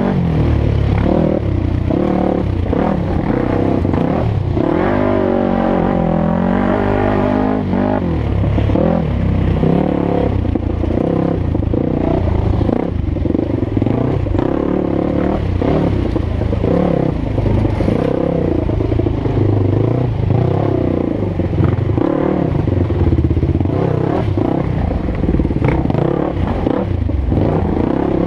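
Dirt bike engine heard from the rider's helmet-mounted camera, revving up and down as the rider climbs over rough ground. Its pitch rises and falls most clearly about five to eight seconds in, with clattering knocks from the ride.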